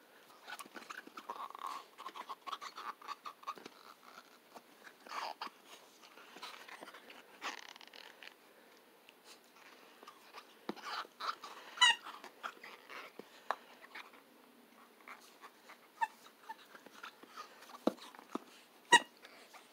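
A puppy chewing and gnawing on a rubber ball held in a hand: a quiet run of small clicks and mouthing noises, with a few short, sharp squeaks, the loudest about twelve seconds in and near the end.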